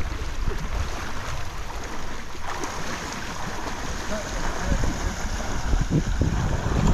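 Trout stream water flowing as an even rushing hiss, with wind on the microphone adding a low rumble.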